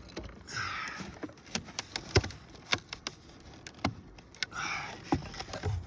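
Irregular sharp knocks and light taps on wooden roof shakes, with a couple of short scrapes, as a shake is lifted and a nail is worked in under it. The loudest knock comes about two seconds in.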